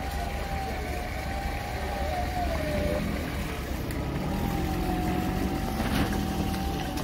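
Off-road SUV engine running with a steady low rumble and a thin, wavering high tone over it; the engine note gets stronger in the second half.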